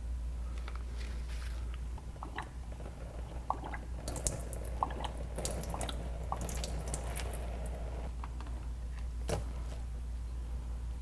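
Gloved hands working a spin-on oil filter off a car while engine oil drips and trickles into a drain pan. Scattered small clicks and wet squishes, a denser stretch of liquid sound in the middle, and one sharper click near the end.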